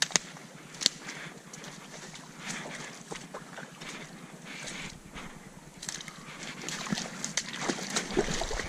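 Dry branches and brush crackling underfoot, with two sharp twig snaps in the first second and a run of smaller crackles near the end.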